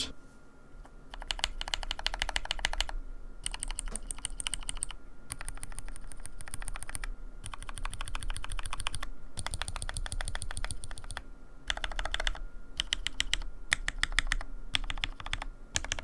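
Typing on a mechanical keyboard with Akko x TTC Demon linear switches and cherry-profile keycaps, in several quick bursts of keystrokes with short pauses between. The keycaps interfere with the switches' light diffusers on the lower rows.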